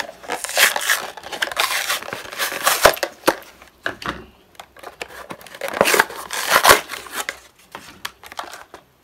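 Plastic blister packaging being torn open and crinkled by hand. The rustling and tearing come in two main stretches, with sharp clicks in between.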